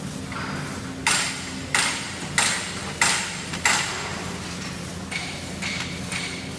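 Three-side-seal bag-making machine running: a steady motor hum under a regular series of sharp metallic clacks, about one every 0.6 s, five loud ones and then three weaker ones near the end, each ringing briefly.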